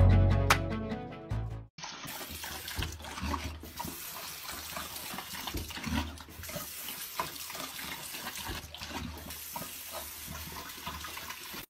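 Guitar music cuts off in the first two seconds. Then a bathroom sink tap runs into the basin while a dog drinks from the stream, small irregular splashes and clicks over the steady hiss of water.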